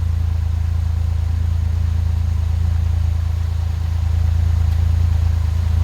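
Fast-flowing creek water rushing over rocks: a loud, steady low rumble.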